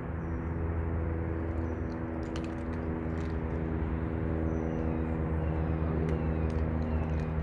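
Steady low mechanical hum with several held tones, growing slightly louder, from a running engine or machine. Faint scattered clicks over it fit cats crunching dry cat food.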